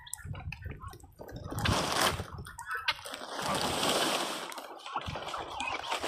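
Water splashing and sloshing, coming and going in uneven bursts.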